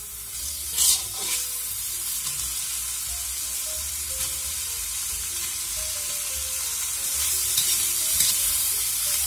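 Salt pork and napa cabbage stems sizzling in hot oil in a wok, stirred and tossed with a metal spatula. The sizzle is steady and grows a little louder near the end.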